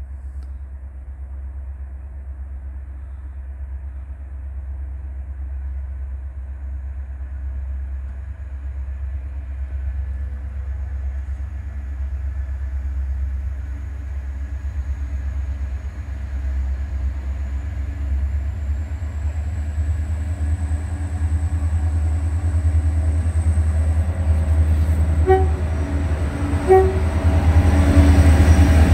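Diesel freight train approaching, its deep engine rumble growing steadily louder, with a faint high whine rising in pitch through the second half. The horn gives two short toots a couple of seconds before the locomotives reach the platform, and the train passes loudly at the very end.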